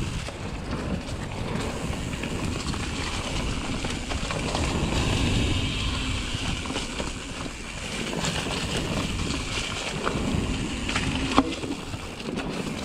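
Riding noise from a Pivot Mach 5.5 mountain bike at speed on flat dirt singletrack: wind rushing over the camera microphone and tyres rolling over dirt and dry leaves, with scattered clicks and rattles from the bike and one sharp click near the end.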